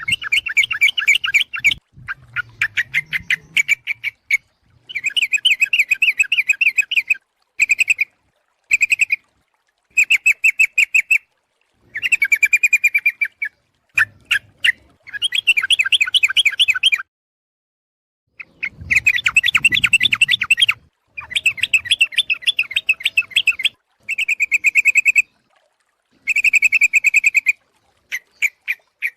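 Yellow-vented bulbul (trucuk) calling: bursts of rapid chattering notes, each lasting from half a second to about two seconds, repeated with short pauses. It is a lure call of a female calling to males.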